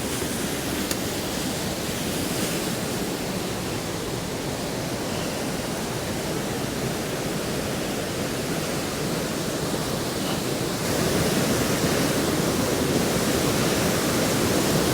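Waterfall and rapids swollen by heavy rain, a steady rush of falling water that gets louder about eleven seconds in.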